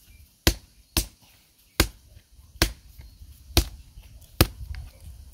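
A hard green seed pod knocked six times against an asphalt road to crack its husk open, sharp separate knocks a little under a second apart.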